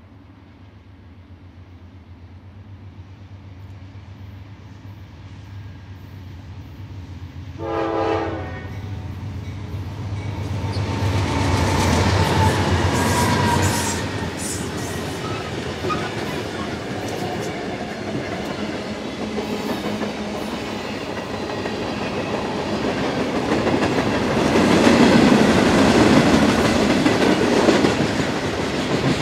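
Norfolk Southern freight train approaching and passing: the diesel locomotives' engine noise grows steadily louder, a short horn blast sounds about eight seconds in, then the locomotives go by and a long string of freight cars follows with steady wheel-on-rail rolling noise.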